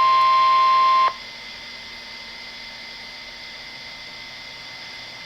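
NOAA Weather Radio 1050 Hz warning alarm tone playing through a weather radio's speaker, a steady tone that cuts off abruptly about a second in and leaves faint receiver hiss. The tone is the alert signal that precedes a broadcast weather warning or watch message.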